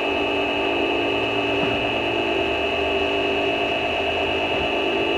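Benchtop mini mill's spindle running steadily, a constant hum with a high whine. The end mill is being slowly fed down to touch off on the workpiece and is not yet cutting. A deeper hum joins about a second in and fades near the end.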